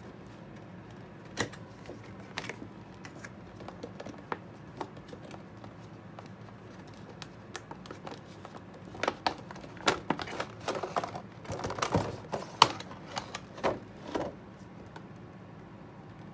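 Hands opening a cardboard action-figure box with a clear plastic window: scattered clicks, taps and rustles of cardboard and plastic, sparse at first and busier and louder in the second half.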